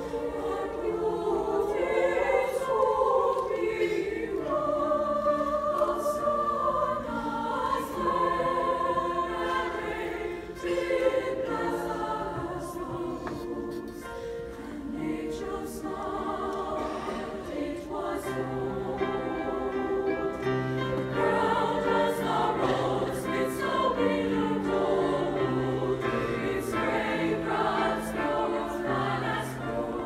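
Women's choir singing in parts, with piano accompaniment.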